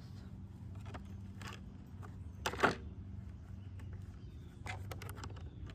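A lid on a lawnmower being pried and pulled off: scattered small clicks and scrapes, with one sharp snap about two and a half seconds in as it comes loose.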